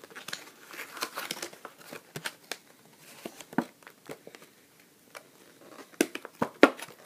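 Stiff clear plastic blister packaging crinkling and clicking as a graphing calculator is worked out of it by hand. The crackles come in irregular bursts, with a few sharper clicks, the loudest about six seconds in.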